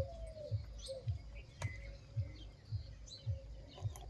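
Small birds chirping in the background over a regular run of soft, low thumps about twice a second.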